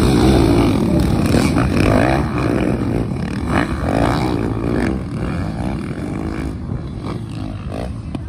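A pack of motocross dirt bikes accelerating out of a dirt corner, their engines revving up and down in overlapping rising and falling pitches. The sound fades as the bikes ride away.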